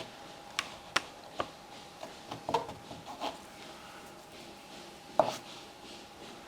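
Scattered light taps and rubbing as glue is spread over the wader fabric and patch by hand, with a sharper click about five seconds in. A faint steady hum runs underneath.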